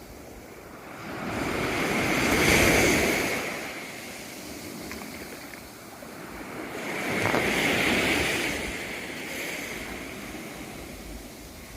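Sea waves washing up on the shore, two surges that each swell up and fall away.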